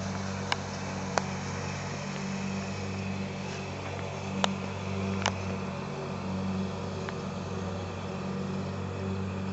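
Steady low motor hum, with several sharp clicks scattered through it.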